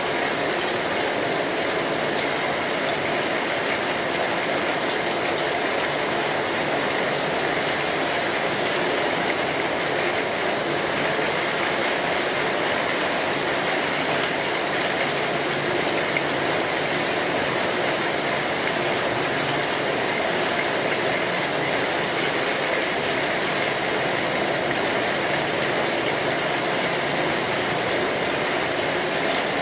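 Steady rain falling, an even wash of noise that does not change.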